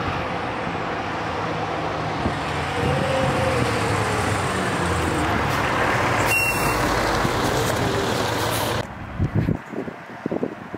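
2018 Spartan Metro Star fire engine's diesel running loud as the truck drives past at close range, with a loud hiss in its last few seconds. It cuts off abruptly near the end to a quieter background with wind buffeting the microphone.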